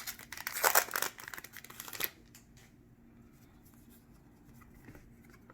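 Baseball card pack wrapper being torn open and crinkled, a quick run of crackly rustling for about two seconds, then only faint handling of the cards.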